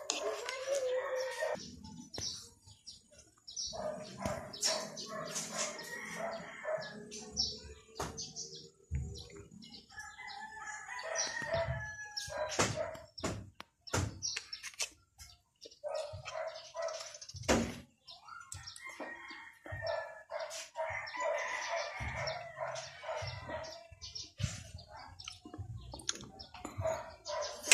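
Rooster crowing and chickens clucking repeatedly, with close-up mouth clicks and chewing noises scattered throughout.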